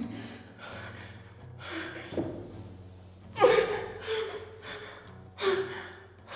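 A woman gasping and breathing heavily, about one breath a second, some gasps ending in a short voiced sound; the loudest gasp comes about three and a half seconds in.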